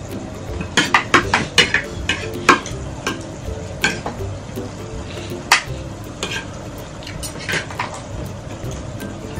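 Spoons and a serving ladle clinking against ceramic plates and a glass soup bowl: a quick run of clinks in the first couple of seconds, then scattered single clinks. Soft background music underneath.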